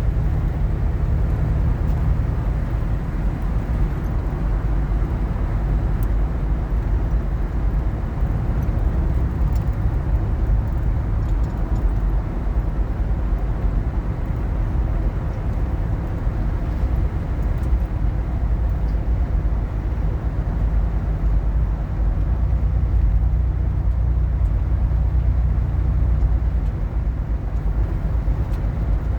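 A car driving, its steady low road and engine noise running evenly with no sudden events.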